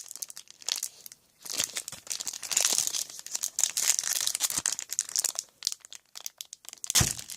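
A trading-card pack wrapper crinkling and tearing as the pack is ripped open by hand. The rustling comes in several spells with short breaks between them.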